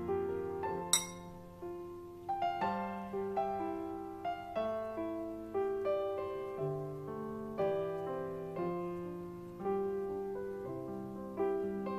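Background solo piano music, a slow melody of single sustained notes. A single sharp click sounds about a second in.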